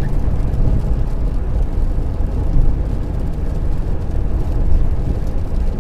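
Steady low rumble of a car's tyres on a wet road and its engine, heard from inside the cabin while cruising at dual-carriageway speed.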